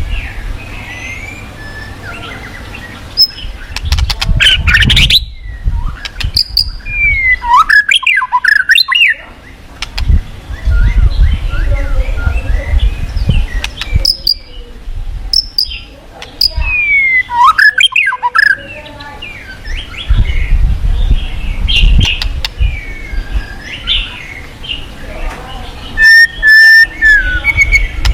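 Forest birds singing and calling, with quick sweeping whistles, chirps and rapid clicking phrases, over the low, surging rush of a fast-flowing river.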